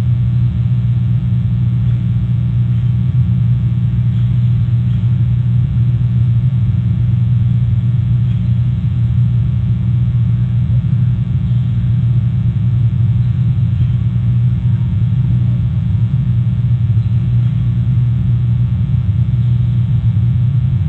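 A steady low rumble that does not change, with no distinct events in it.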